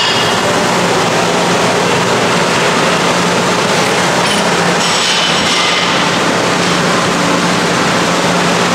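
Loud, steady rushing noise with a low, even hum underneath.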